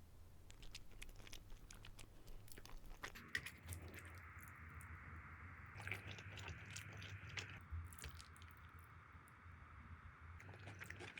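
Faint close-up eating sounds: a person chewing and biting food, with small clicks and crunches, over a faint steady hiss that comes in about three seconds in.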